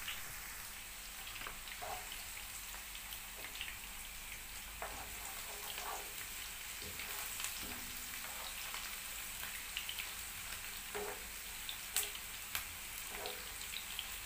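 Chopped onion frying in hot oil in a pan: a steady crackling sizzle, stirred with a wooden spoon that now and then clicks against the pan.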